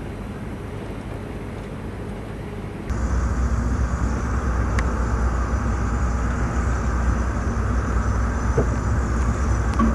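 Steady low rumble of a motor vehicle driving, with faint engine hum underneath; it jumps louder about three seconds in and then stays steady.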